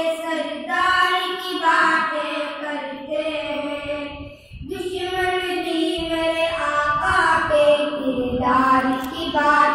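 Twin boys singing a naat, an Islamic devotional poem, with no instruments, holding long melodic notes, with a short pause for breath about halfway through.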